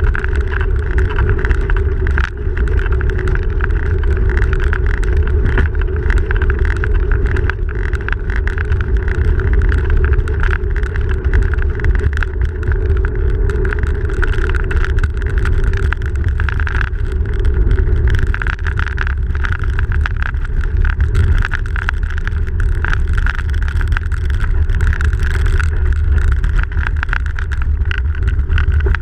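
A bicycle rolling along a snowy road, heard from a camera mounted on the bike: steady rumble and hiss of the tyres on the packed snow and road, wind on the microphone, and frequent small knocks and rattles over bumps.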